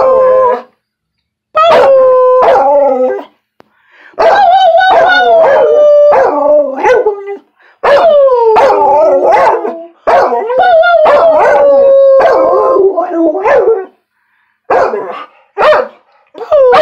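A dog "talking": a series of drawn-out, wavering howls, several sliding down in pitch at the end, with short pauses between them, turning into a few short barks near the end.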